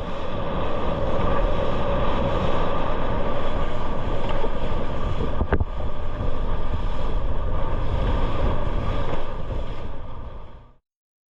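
Steady rushing noise of the sea, with a faint steady hum running through it and a single sharp click about five and a half seconds in; it fades in at the start and fades out near the end.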